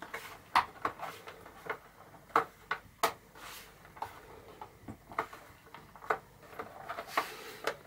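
Irregular plastic clicks and small knocks from an 18-inch Neewer ring light being handled and adjusted, a few sharper clicks standing out among lighter ticking.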